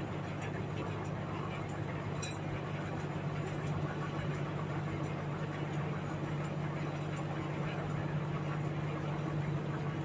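Large band sawmill running, its blade sawing lengthwise through a huge log: a steady drone with a strong low hum under a rough, even rasp.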